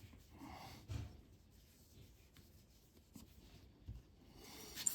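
Faint handling sounds of small watch parts while a new crystal is fitted to a watch case: soft rubbing, with a light knock about a second in and a few faint ticks later.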